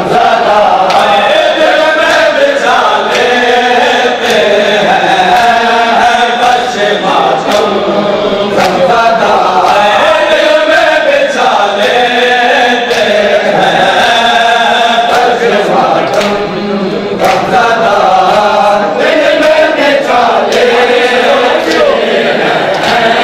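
Men chanting a noha (mourning lament) together, with the repeated sharp slaps of hands beating on bare chests in matam.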